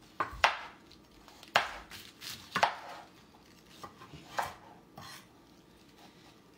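Kitchen knives chopping vegetables, cabbage among them, on cutting boards: irregular sharp knocks of the blade against the board, about seven in the first five seconds, then quieter in the last second or so.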